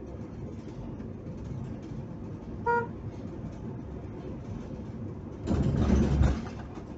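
Steady road and engine noise inside a moving car, with one short car-horn toot about three seconds in. Near the end comes a loud, low rumbling rush of noise lasting about a second.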